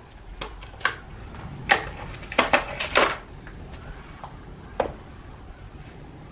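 A string of sharp metallic clicks and clacks, bunched in the first three seconds with one more near the five-second mark: an air rifle being handled, reloaded and readied after running out of pellets.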